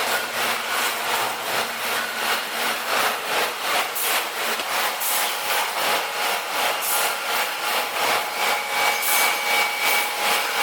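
Tire shredding machine running, with a rhythmic rasping grind that pulses a little over twice a second.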